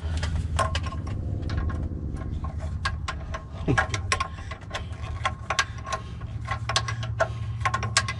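Hand tools clicking and clinking against metal on a car's underside, in an irregular run of sharp clicks, over a steady low hum.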